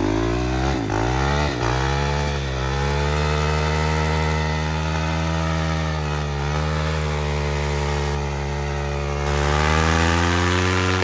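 Motorcycle burnout: the engine revs up over the first couple of seconds, then is held at steady high revs while the rear tire spins in place, wearing the already worn tire down to nothing. The engine cuts off sharply at the end.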